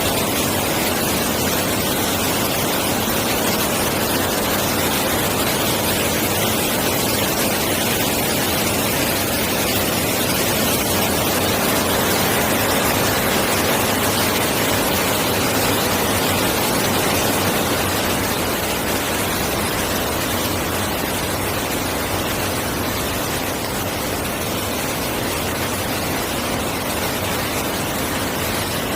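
Rushing water of a valley stream: a loud, steady hiss, a little quieter in the last third.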